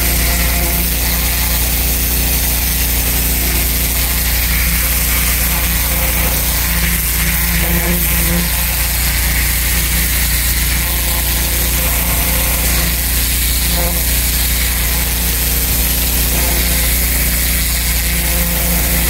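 Pressure washer running steadily: a continuous motor-and-pump hum under the hiss of the high-pressure water jet spraying onto brick.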